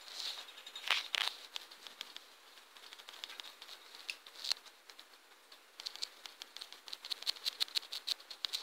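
Taps on a tablet's on-screen keyboard: a few scattered taps, then a quick run of several taps a second near the end as one letter is typed over and over.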